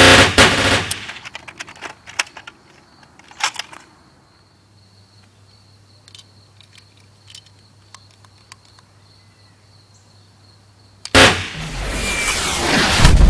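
Gunfire effects: a loud burst cuts off within the first second, then a few scattered single shots, then several seconds of low quiet with faint clicks. Near the end a sharp bang sets off a rising rush of noise.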